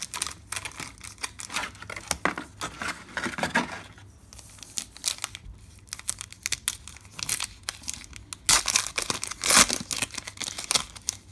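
Foil trading-card pack crinkling as it is pulled from the cardboard box and torn open. The loudest crinkling comes in a burst about three-quarters of the way through.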